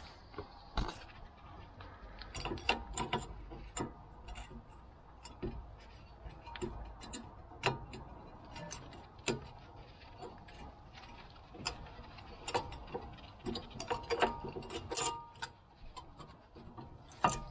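Brake pads and their metal clips clicking and clinking against the front brake caliper bracket as they are handled and seated by hand. The clicks are sharp and irregular, some ringing briefly, with a busy run of them about two thirds of the way through.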